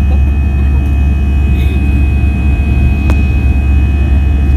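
Steady airliner cabin noise: the low rumble of the jet engines and air flow, with a thin constant high tone over it and a single sharp click about three seconds in.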